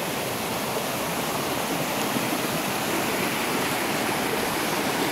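A rocky mountain stream pouring over a small cascade, with a steady rush of water.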